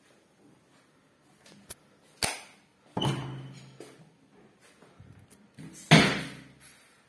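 An interior door with a glass panel being handled: a couple of sharp latch-like clicks, then two heavy thuds about three seconds apart, each with a short low ring, the second the loudest.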